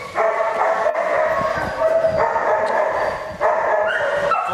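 A young black German Shepherd whining in a string of long, high, steady-pitched whines, one after another with short breaks.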